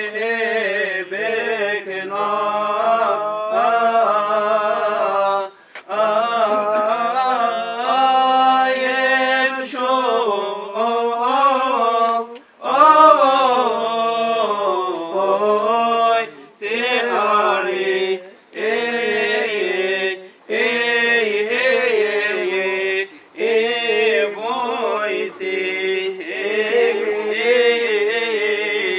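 Unaccompanied Coptic Orthodox liturgical chant sung by voices. Long phrases wind up and down in pitch on each drawn-out syllable, with short breaks for breath every few seconds.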